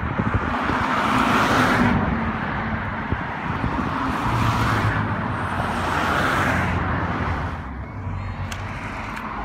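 Road traffic passing close by on an overpass: about three vehicles go past in turn, their tyre noise swelling and fading, over a steady low rumble.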